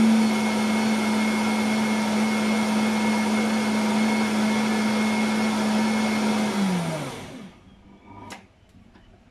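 Vitamix blender motor running at a steady high speed, grinding dry whole grain oats into flour. About six and a half seconds in it is switched off and the pitch falls as the motor spins down, and a few faint clicks follow.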